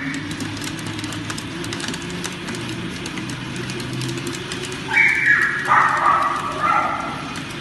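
Wooden-slat dog treadmill running under a walking corgi: a steady low rumble with fast, even clicking of the slats. About five seconds in, a louder, higher-pitched sound of unclear source comes in for about two seconds.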